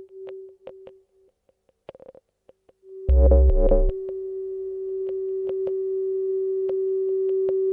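Electronic music: a held synthesizer tone with sparse clicks, dropping almost to silence for a couple of seconds. About three seconds in, a loud deep bass hit comes in, and the tone then holds steady with scattered ticks.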